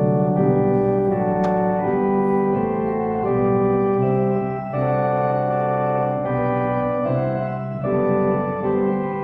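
Organ music: slow, sustained chords with the notes held evenly and the chord changing every second or so.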